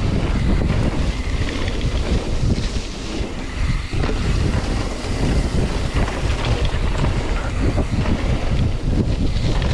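Wind rushing and buffeting over an action camera's microphone on a Propain Tyee mountain bike descending a wet dirt trail, mixed with the rumble of its tyres rolling over the slippery ground. The noise is loud and rough, rising and falling with the terrain.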